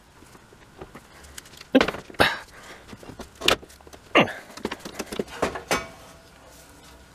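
Metal clanks and rattles from a rusty fireplace screen being worked on: the chain-mesh curtain jingles and a steel punch knocks against a rivet in its bracket. There are four sharp, loud clanks in the first half, then a run of lighter clicks.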